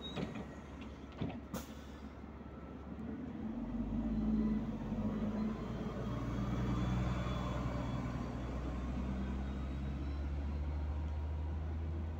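City bus pulling away from the stop: a couple of sharp clicks in the first two seconds, then the bus's engine drone swells about three seconds in and runs on low and steady.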